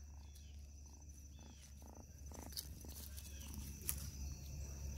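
Black kitten mewing faintly, a few short calls about half a second apart in the first half, with two sharp clicks later on.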